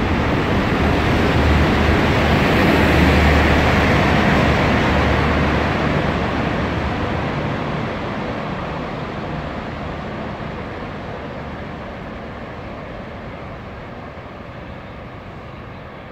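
Network Rail Plasser & Theurer track machine passing at speed, its diesel engine and wheels on the rails rumbling. The sound is loudest about three seconds in, then fades steadily as the machine runs away down the line.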